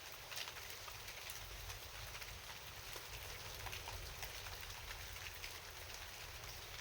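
Steady rain falling, an even hiss with many separate drops ticking in it.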